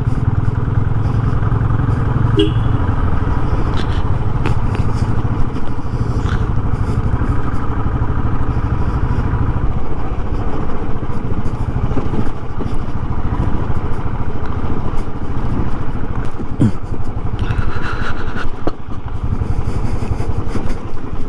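Single-cylinder motorcycle engine running steadily while riding over a broken, gravelly road, with occasional short knocks and rattles.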